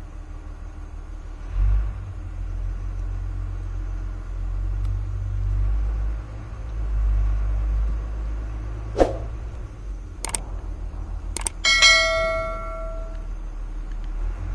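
A steady low rumble, with three sharp clicks in the second half and then one bell-like metallic ding that rings for about a second and a half before dying away.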